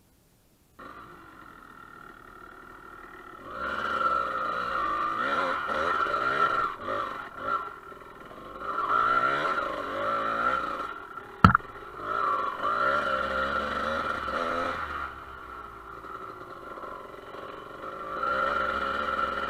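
Dirt bike engine running, steady at first, then rising and falling in revs as the bike rides a rough trail. One sharp knock comes about halfway through.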